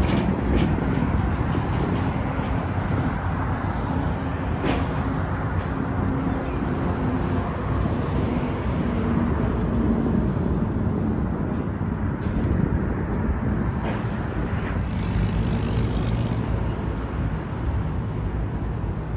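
Steady road traffic noise from cars passing on a busy multi-lane street, with a few faint knocks.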